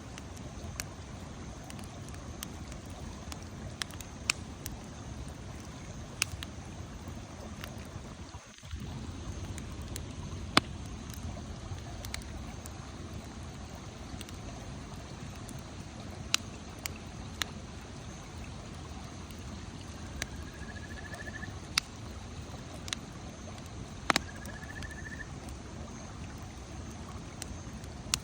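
Wood campfire burning with a steady rush and irregular sharp crackles and pops.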